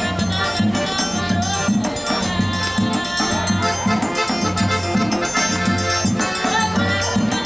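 Forró-style trio playing live: a Todeschini piano accordion carries the melody over a triangle and the steady beat of a bass drum, with a singer's voice.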